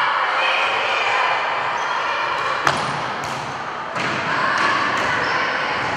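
Futsal ball being kicked and bouncing on a wooden sports-hall floor: a series of sharp thuds echoing in the large hall, the loudest a little under three seconds in.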